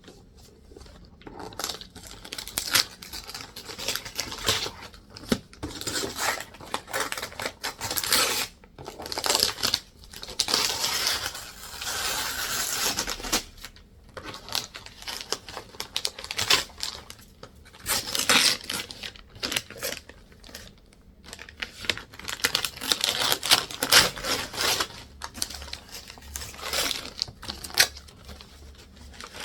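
A gift package being pulled and torn open by hand, with repeated tearing, crinkling and rustling of the wrapping in irregular bursts.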